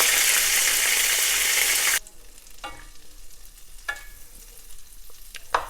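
Chicken balls frying in hot oil with a steady, loud sizzle that cuts off suddenly about two seconds in. After that it is much quieter, with a few light clicks.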